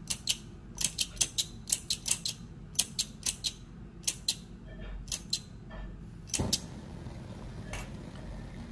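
Flint spark striker squeezed again and again at a Bunsen burner, about twenty sharp scraping clicks in quick groups. About six and a half seconds in the gas catches with a louder pop, and a faint steady hiss of the burner flame follows.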